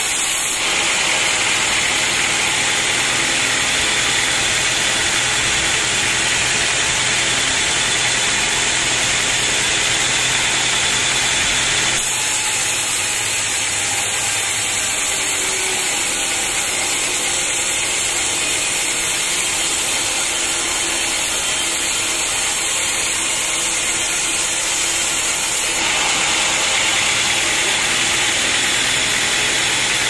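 Band sawmill blade cutting lengthwise through an old teak log: a steady, loud hiss of the blade in the wood over the running saw machinery, shifting slightly in tone a couple of times.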